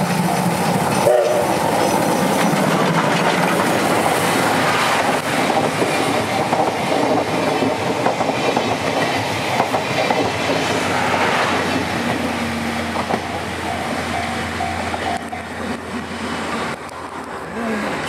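D51 steam locomotive passing close by, followed by its passenger coaches rolling past with a steady clickety-clack of wheels on rail joints, fading away near the end. A level crossing warning bell rings in repeated short strokes.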